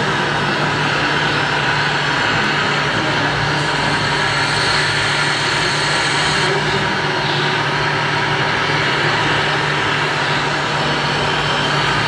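RC Scania tipper semi-truck running with a steady truck-engine sound over a constant background hum. A thin high whine joins for about three seconds in the middle.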